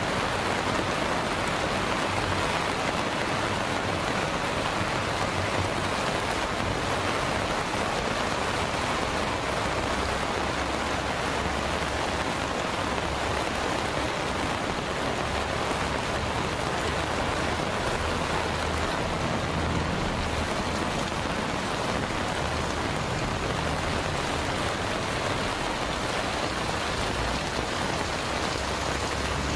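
Heavy monsoon rain pouring steadily onto a road, ground and trees, a dense even rush with no breaks.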